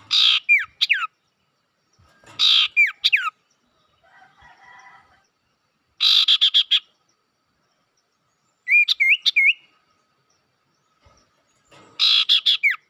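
Recorded calls of sirtu and cito songbirds, played as a lure to set other birds calling. Five loud bouts of a fast buzzy trill, most ending in clear whistled slurs, come every two to three seconds. A softer twittering comes about four seconds in.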